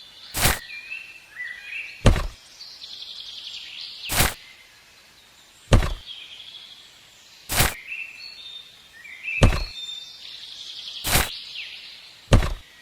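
Sharp knocks, eight of them, one about every two seconds, with birds chirping between them.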